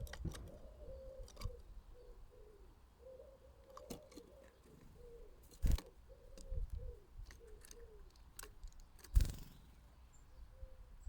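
A pigeon cooing in a long run of short, low, soft notes, with a few sharp knocks, the loudest about six and nine seconds in.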